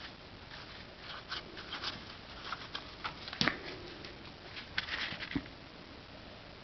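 Irish Terrier chewing and tearing an empty cardboard toilet paper roll: irregular crackles and small rips, with a louder knock about halfway through and another near the end.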